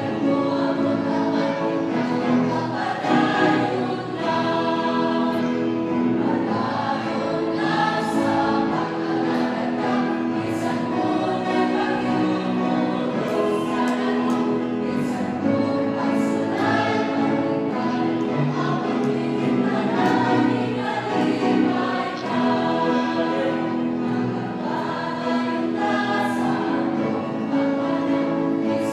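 Mixed choir of young men and women singing a hymn in Cebuano, in long held notes.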